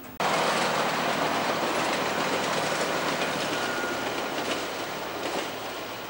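Perth suburban diesel railcar set running through the station, its wheels and running gear making a loud steady rumble that starts abruptly and slowly fades as the train pulls away.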